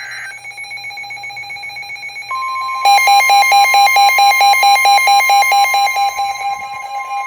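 Emergency Alert System alert tones: a short screeching data burst ends just after the start, over a steady electronic buzz. About two seconds in a steady alert tone begins, and a second later a loud, rapid electronic beeping, about six beeps a second, joins it until about six seconds in, while the steady tone holds.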